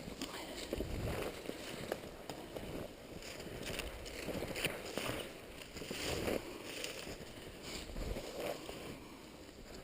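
Footsteps and rustling of clothing while walking on a trail, uneven scuffs and soft knocks at no steady rhythm.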